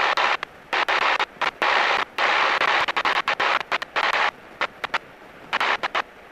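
Light airplane's engine noise heard as a hiss through the cockpit headset intercom, cutting in and out abruptly many times as the intercom squelch opens and closes, with a longer dropout in the second half.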